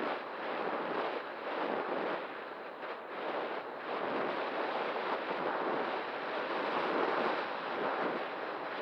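Steady rushing wind noise on the microphone, swelling and easing a little, with no motor tone or other distinct sound.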